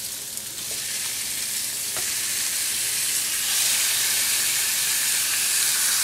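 Raw chicken pieces sizzling as they drop into hot oil and spice masala in a stainless steel pan. The sizzle grows louder over the first few seconds as more chicken goes in, then holds steady.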